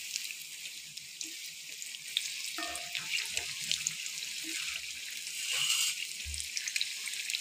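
Battered boiled eggs (egg bhaji) sizzling steadily as they deep-fry in hot oil, with a few soft knocks from a steel slotted spoon turning them in the pan.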